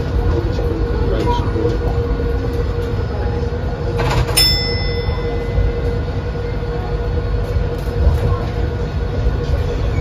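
Monorail car running along its elevated guideway, heard from inside the car: a steady low rumble with a constant hum. About four seconds in there is one sharp click followed by a short ringing tone.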